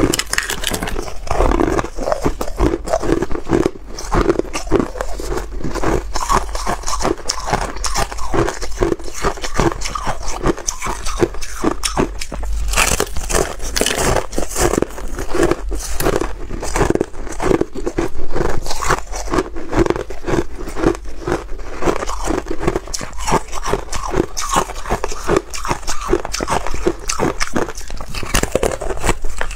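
Thin sheets of frozen cola ice being bitten and chewed close to the microphone: a continuous run of crisp cracks and crackling crunches.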